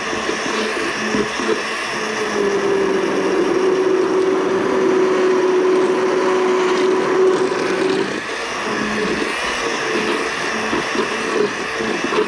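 Immersion blender running continuously, puréeing a tomato, butter and cream sauce in a pot. Its motor holds a clear steady pitch from about two seconds in to about eight, and sounds rougher and more uneven around that.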